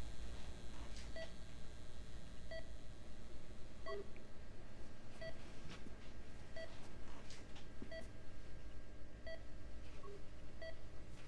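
A short electronic beep repeating at a slow, even pace, about once every second and a third, over a low steady hum.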